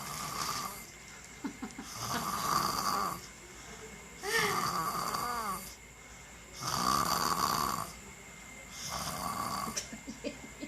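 Snoring: about five snores in a steady rhythm, roughly one every two seconds. One snore near the middle carries a whistling tone that glides in pitch.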